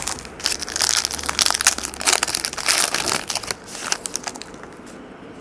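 Crinkling and crushing of a trading card pack wrapper being handled and torn open, in quick crackly bursts that fade out about four seconds in.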